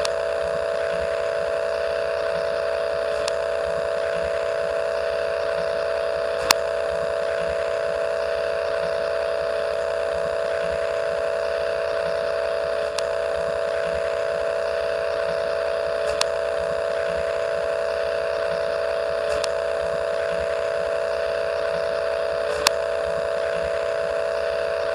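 VHS tape playback noise: a steady hum of several tones over a bed of tape hiss, with a faint regular pulse underneath. A few sharp clicks cut through, the loudest about six and a half seconds in and near the end.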